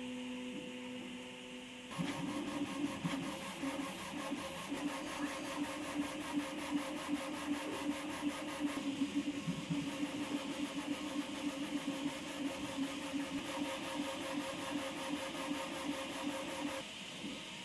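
Prusa MK4 3D printer printing: its stepper motors move the print head and bed with a steady buzzing tone and fast, even ticking. The motion starts abruptly about two seconds in and drops off shortly before the end.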